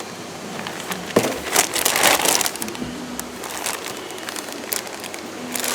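Parts being unpacked from a cardboard box: a sharp knock about a second in, then a burst of cardboard and packing crunching and rustling, and a few clicks near the end.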